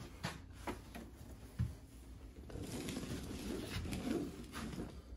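Faint knocks and clicks with some rubbing as the metal-and-glass oven door is handled and brought to its hinge slots, with a single low thump about a second and a half in.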